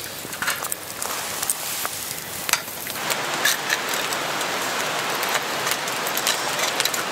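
Wood fire crackling with sharp pops in a steel fire pit. About three seconds in, a denser steady sizzle comes in: food cooking on a grill plate over the fire.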